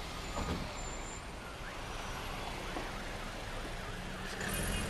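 Road traffic noise from cars on the street, with a faint siren wailing up and down underneath; the low rumble swells near the end.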